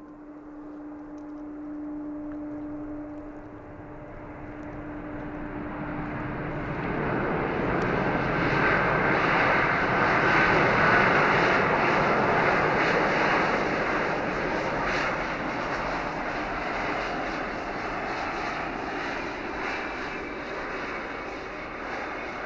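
Jet airliner (Airbus A320) on its landing roll on a snowy runway. A steady engine hum swells from about six seconds in to a loud jet roar as reverse thrust is applied. The roar peaks around ten seconds in and slowly eases as the plane slows.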